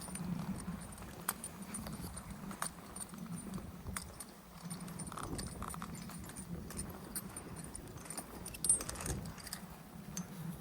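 Footsteps on a walk with the jingle and clink of dog leads, clips and collar tags, a scatter of sharp clicks, with one brief high clink near the end.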